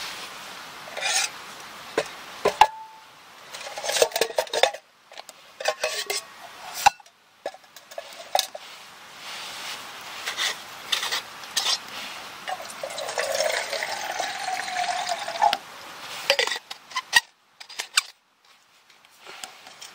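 Metal bottle and metal camp mug clinking and knocking as the bottle is handled and lifted out of the mug. Later, liquid pours into the mug for about two seconds, its pitch rising, followed by a few more clinks.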